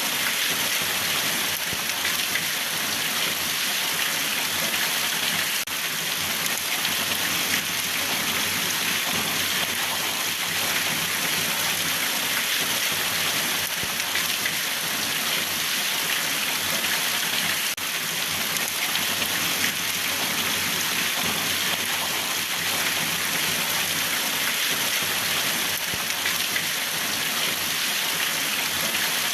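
Steady rain falling, an even hiss of drops on a surface.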